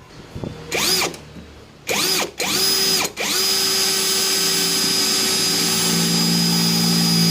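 Electric drill whining up and down in three short trigger pulls, then running steadily for about four and a half seconds while drilling a screw hole into metal.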